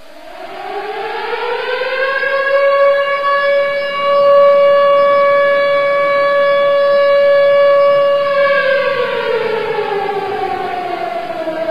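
Civil defence siren sounding: its tone climbs for a couple of seconds, holds one steady note for about five seconds, then slides down through the last few seconds. This is the 09:05 siren of 10 November that calls the nationwide moment of silence for Atatürk.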